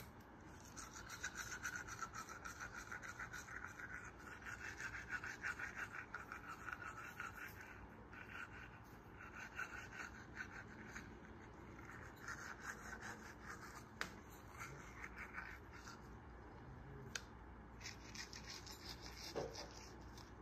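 Manual toothbrush scrubbing teeth in fast back-and-forth strokes, faint, with a few short breaks.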